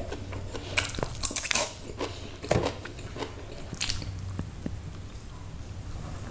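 Close-miked eating of mie Aceh noodles: slurping, chewing and sharp mouth clicks in the first four seconds, then a quieter stretch of a few faint gulps as milk is drunk from a carton.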